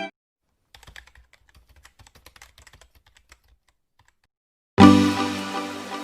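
Keyboard typing sound effect: a quick, irregular run of key clicks for about three seconds. A little before the end, music comes in sharply with a loud chord.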